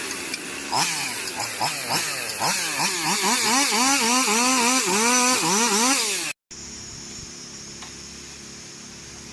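Two-stroke chainsaw revving up and down over and over, as it does while cutting branches. It cuts off suddenly about six seconds in, and a quieter, steady engine hum follows.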